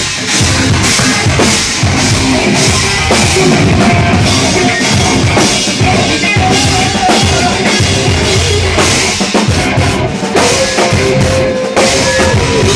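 Live metal band playing loud: a drum kit hitting hard with cymbal strikes about twice a second under distorted electric guitars. About ten seconds in, a single note is held for a couple of seconds.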